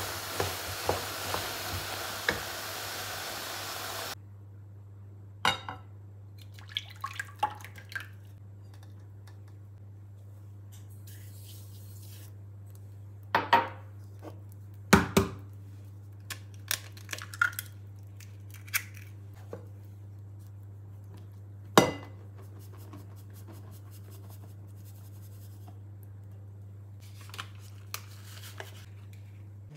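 Kitchen work: a dense hiss with quick clicks for about four seconds, which then cuts off abruptly. After it come scattered clinks and knocks of utensils and dishes over a steady low hum; the sharpest knock falls about 22 seconds in.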